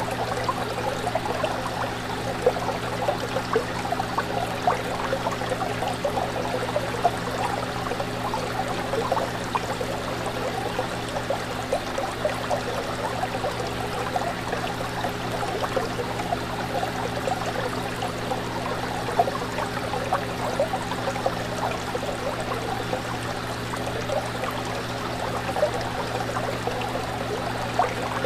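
Fish tank water bubbling and trickling steadily with small pops, over a steady low hum.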